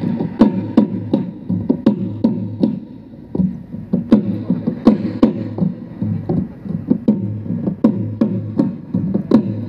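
Folk dance music driven by a drum beaten in a steady rhythm of about three beats a second, each beat sliding down in pitch.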